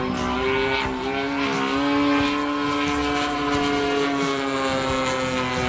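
The 40cc MVVS two-stroke petrol engine and propeller of a large radio-controlled Zlin 50LS model plane running steadily in flight overhead. Its pitch rises a little, then sinks slowly as the plane passes.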